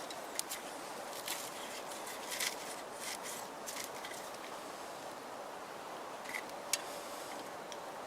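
Small twig fire catching in a Swiss army volcano stove, helped along by a Vaseline-soaked cotton pad: a steady hiss with scattered sharp crackles and snaps, one stronger snap near the end.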